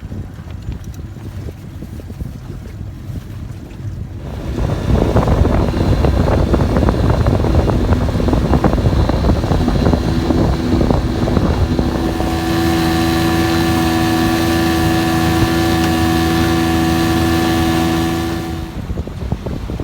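Motorboat engine running at low speed, then opening up about four seconds in to a loud rumble with rushing water and wind. From about twelve seconds it settles into a steady cruising tone with a strong hiss, and it eases off near the end.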